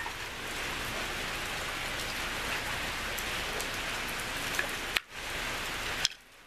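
Steady splashing hiss of falling water, broken by a click and short dip about five seconds in and a brief drop-out near the end.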